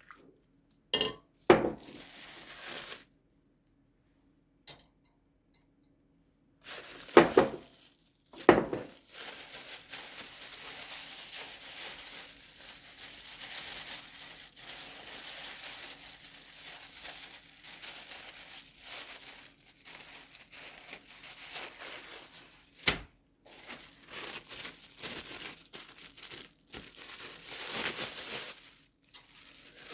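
Kitchen handling sounds: plastic crinkling and rustling, broken by a few sharp knocks of dishes or containers.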